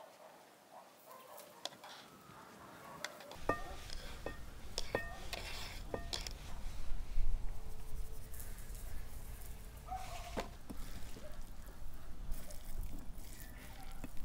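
Cooking utensils clinking and scraping against metal pots and dishes in scattered knocks, some with a short ring. A low rumble comes in about three seconds in.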